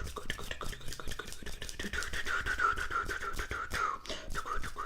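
Close-miked ASMR mouth sounds: rapid wet clicks and pops over a breathy, hissing mouth noise.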